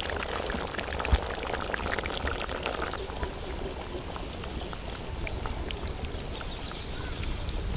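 Hot crab roast gravy bubbling in the pan just off the heat, a scatter of small pops and blips that is busier for the first three seconds and then thins out, over a steady low rumble.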